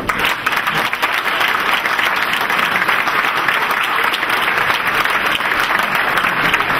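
Audience applauding, a dense, even patter of many hands clapping that starts right away and holds steady.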